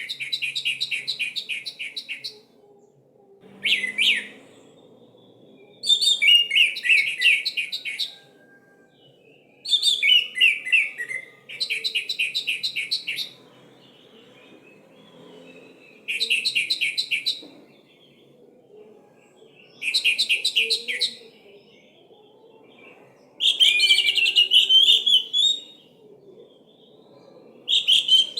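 Orange-headed thrush singing as bait song to set off a silent bird: loud phrases of one to two seconds made of fast, high, repeated trilled notes, about nine of them with short pauses in between.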